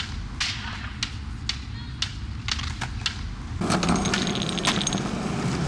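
Sharp clicks about twice a second, then from about three and a half seconds in the rumble of skateboard wheels rolling on concrete, with the clack of the board.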